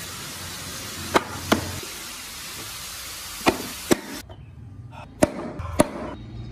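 Wooden doors of a carved BMW X6 model car clacking shut by hand: six sharp wood-on-wood clicks in three pairs over a steady hiss, which cuts off about four seconds in.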